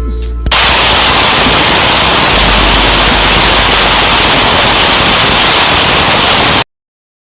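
Loud static hiss, like a dead broadcast channel, cuts in about half a second in after the last notes of music. It holds steady for about six seconds, then cuts off suddenly into silence.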